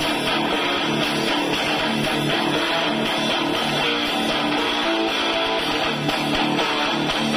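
Loud guitar-led music, strummed with a steady repeating pattern, played over a large sound system of stacked 18-inch subwoofer cabinets.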